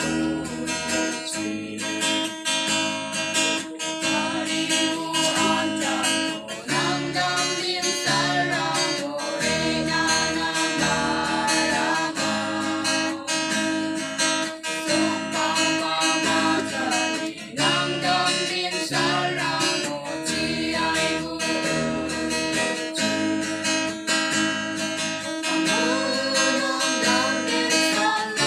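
A mixed group of young men and women singing a song together, accompanied by a strummed acoustic guitar.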